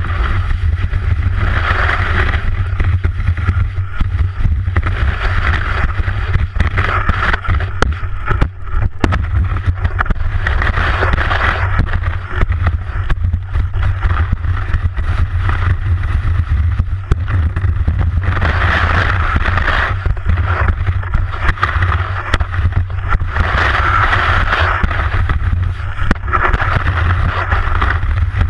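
Skis sliding and scraping over snow, a hiss that swells and fades every few seconds, under a constant low rumble of wind buffeting the ski-mounted action camera's microphone.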